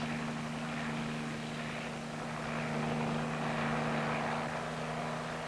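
Piasecki H-21 tandem-rotor helicopter hovering low, its radial piston engine and twin rotors running steadily: an even mechanical hum under a broad rushing noise.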